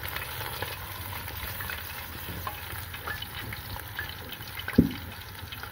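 Besan-battered fish deep-frying in hot oil on its second fry: a steady sizzle with scattered crackles. A single sharp knock comes about five seconds in.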